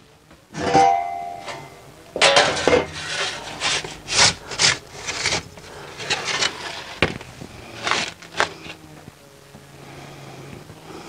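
Perforated metal pizza peel clattering and scraping against the wood-fired oven's mouth and floor as baked rolls are slid onto it and lifted out. A dozen or so sharp knocks and scrapes, one ringing briefly about a second in, then quieter near the end.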